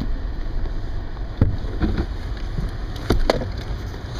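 Cabin noise inside a truck driving slowly on a rough dirt road: a steady low rumble from the engine and tyres, with a few sharp knocks and rattles about a second and a half in and again around three seconds in.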